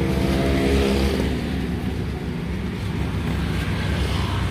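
Road traffic passing close by: a vehicle engine's note falls and fades in the first second or so, over a steady traffic rumble.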